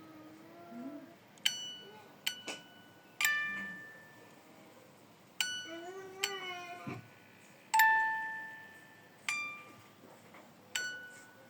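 Bell-like chime notes struck one at a time at uneven intervals, each ringing out and fading, with a few short wavering pitched glides between them.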